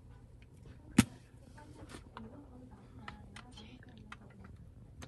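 Light plastic handling sounds at a mini eyelash washing machine: one sharp click about a second in, then scattered small clicks as a foam cleanser pump bottle is pressed over the tub.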